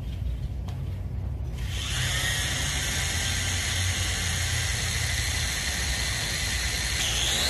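JJRC toy quadcopter's four small electric motors and propellers spinning up about two seconds in, then a steady high whine as the drone sits running on the ground, over a low rumble.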